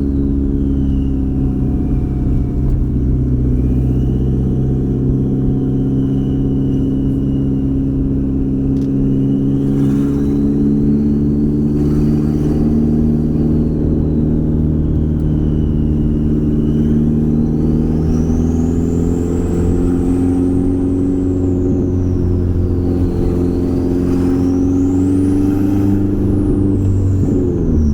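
B5 Audi A4's turbocharged four-cylinder engine running steadily while the car is driven, with a high whistle from the turbo that slowly rises and falls over several seconds.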